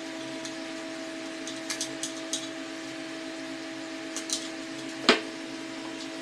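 Light clicks and taps of small hard objects being handled, with one sharper knock about five seconds in, over a steady low electrical hum.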